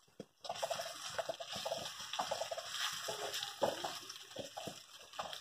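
Wooden spatula gently stirring and turning thick, wet gram-flour curry in a pan, giving a run of irregular wet scraping and sloshing strokes.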